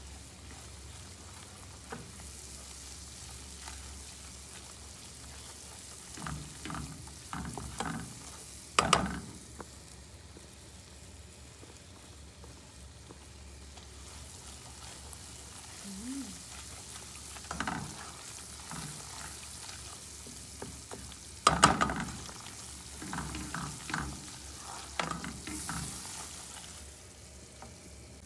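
Butter sizzling in a stainless steel saucepan as flour is stirred in with a spoon to make a roux, with a steady hiss under clusters of scraping and knocking of the spoon against the pan; the two loudest knocks come about nine seconds in and about three-quarters of the way through.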